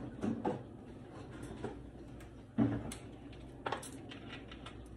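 Light clicks and knocks of kitchen items being handled at the counter, with one louder thump about two and a half seconds in.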